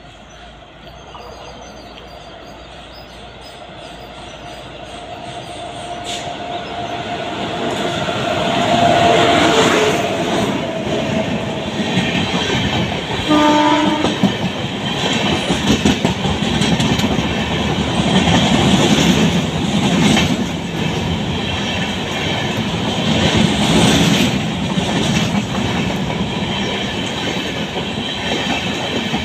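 Express passenger train with LHB coaches approaching and running through a station at speed. A rising rumble and a long horn tone come as it nears; the horn drops in pitch as the locomotive passes, about nine seconds in. Rhythmic wheel clatter of the passing coaches follows, with a short horn blast about halfway through.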